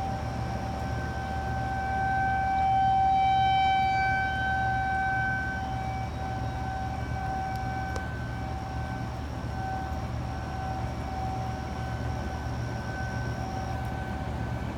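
Outdoor tornado warning siren sounding a steady wail on one held pitch with overtones. It swells loudest about three seconds in, then fades and wavers for the rest, over a steady low rumble.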